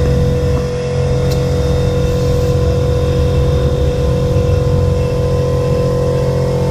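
Air compressor running with a steady hum, supplying pressure to a fuel-injector cleaning (infus) kit.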